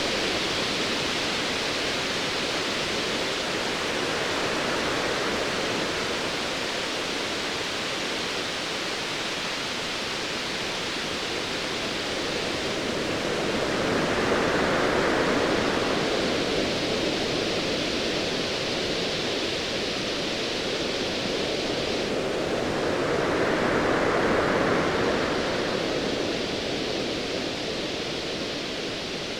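Ocean waves washing in a steady rush of noise, swelling twice: about halfway through and again near the end.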